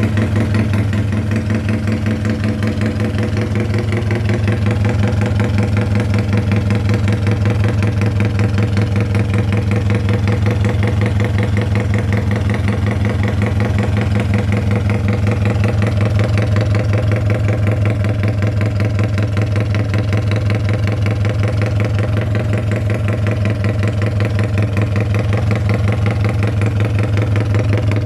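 Carbureted small engine fitted with a 56 mm standard-size piston, idling steadily with a fast, even firing pulse and a panting, breathy idle note.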